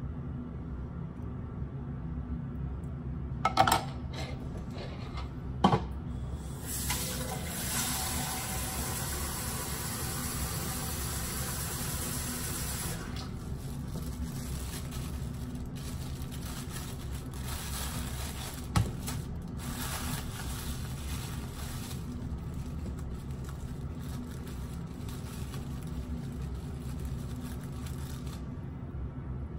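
Metal spoon knocking against a stainless steel mixing bowl three times, over a steady low hum. A rushing hiss lasts about six seconds after the second knock.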